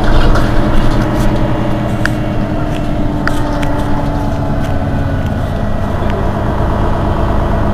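Mercedes-Benz Citaro city bus engine idling steadily with the bus standing at a stop, with two short clicks partway through.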